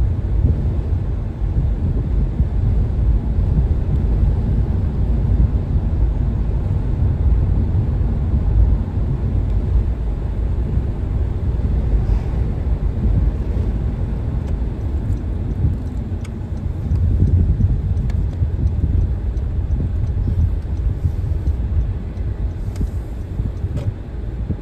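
Steady low rumble of a car driving along a road: road and engine noise.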